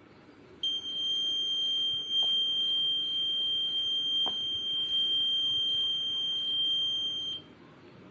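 Buzzer of a homemade LDR light-sensing transistor alarm sounding one steady, high-pitched continuous tone for about seven seconds. It switches on just over half a second in and cuts off sharply near the end. The alarm is tripped by light reaching the LDR when the guarded object is picked up, with two faint clicks heard while it sounds.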